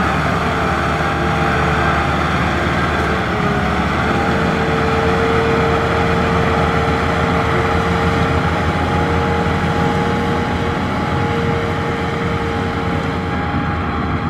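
Farm tractor's diesel engine running steadily under load as it pulls a loaded trailer through mud, with a steady whine held over the engine note. It fades slightly near the end as the tractor pulls away.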